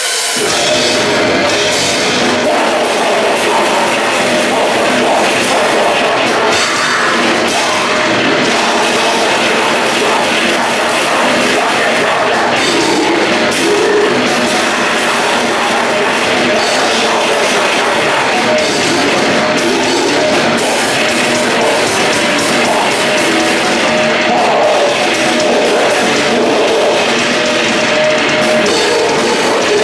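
Grindcore band playing at full volume, a dense heavy-metal wall of drum kit and guitars with little bass, starting abruptly.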